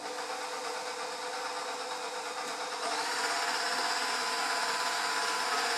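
KitchenAid stand mixer's motor running with an empty bowl and wire whip, on 120 V from a 240-to-120 V step-down transformer; it steps up in speed and gets louder about three seconds in.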